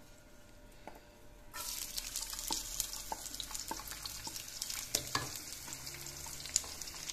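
Chopped garlic dropped into hot oil in a wok starts sizzling suddenly about a second and a half in, and keeps frying with a steady hiss. Light taps and scrapes of a wooden spatula stirring it come through the sizzle.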